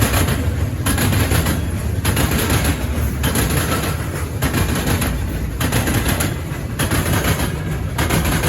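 Loaded freight cars of a potash train rolling past at close range. A steady low rumble is broken about once a second by clacks as the wheels cross rail joints and junction trackwork.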